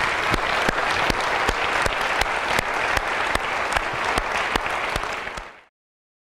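Audience applauding: many hands clapping in a dense, steady patter that cuts off abruptly near the end.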